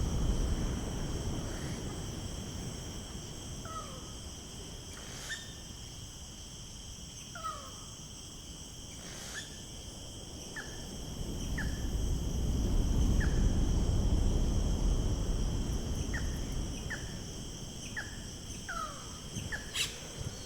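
Nature ambience: a steady, high insect drone with short falling bird chirps every second or so, over a low rumble that swells in the middle.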